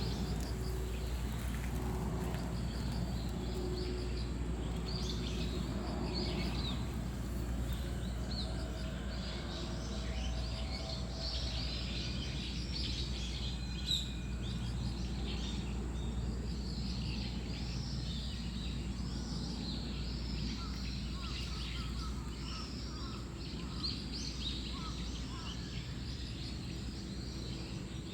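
Many small birds chirping and calling over a steady low background rumble, with a single sharp click about halfway through.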